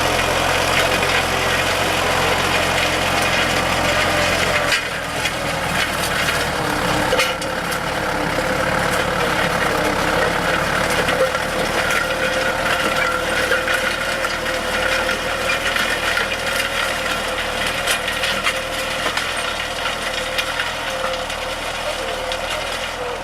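Tractor engine running steadily; about five seconds in, the deep engine hum drops away abruptly and a steadier, higher machine sound carries on.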